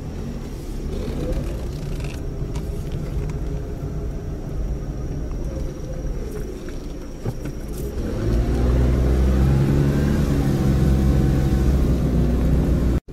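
Car engine heard from inside the cabin while driving up a steep, narrow road. About eight seconds in, the engine note rises and grows louder as it pulls under load. The sound cuts off abruptly just before the end.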